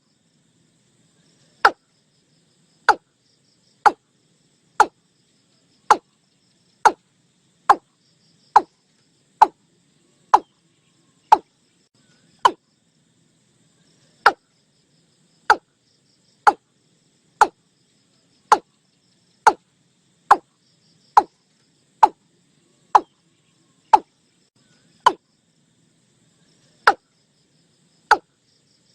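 Watercock calling: a long series of short, sharp notes, about one a second, each dropping quickly in pitch, with brief pauses about halfway through and near the end. A faint high insect hum runs underneath.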